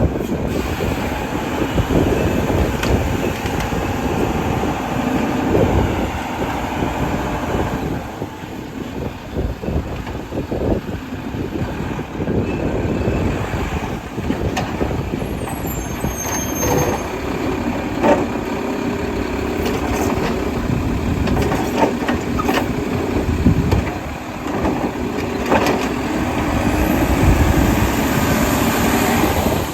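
Mack LEU garbage truck running as it works, its engine note changing, with several sharp knocks in the second half.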